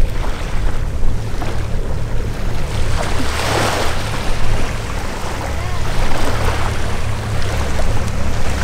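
A formation of single-engine propeller planes flying overhead: a steady low engine drone, mixed with wind noise on the microphone and a louder rush of noise about three and a half seconds in.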